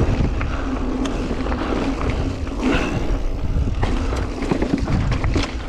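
Mountain bike rolling fast down a rough trail, heard through a GoPro's built-in microphone: a steady rumble of wind and tyre noise with frequent rattles and clicks from the bike.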